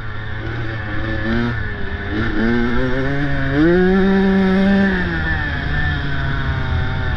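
An engine revving: its pitch climbs from about two seconds in, holds at its loudest for about a second, then drops back, over a steady low drone.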